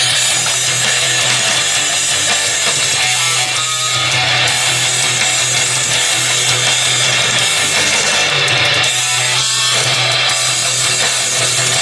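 Guitar music playing through the small built-in speakers of an iPulse jukebox speaker dock, which is working again after repair.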